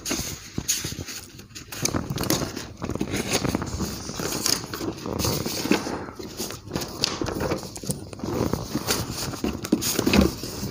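Sheets of paper being lifted, shuffled and turned over, rustling and crackling irregularly.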